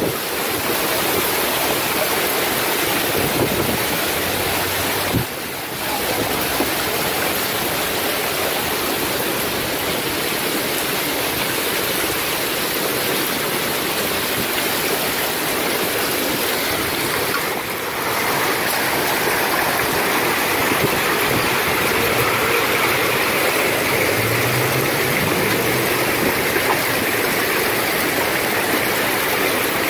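Loud, steady rush of a heavy storm downpour driven by strong wind.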